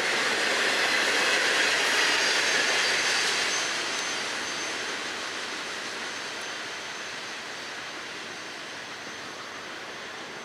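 Freight train cars rolling on the rails, the wheel and rail noise loud for the first few seconds, then fading steadily as the end of the train moves away.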